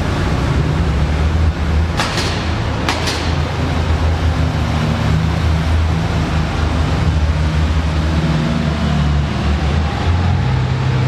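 Car engines idling and rumbling low and steady as cars roll through a concrete parking garage. Two sharp cracks come about two and three seconds in.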